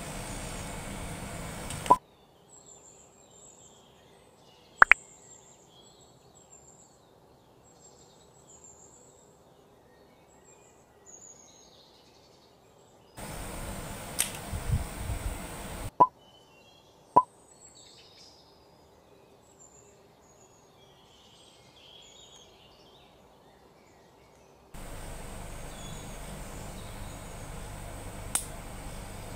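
Sharp, isolated clicks and snaps, with a short cluster of knocks partway through, from a small homemade wooden rubber-band slingshot nail gun being handled and its slider cocked. Faint bird chirps sound in the quieter stretches.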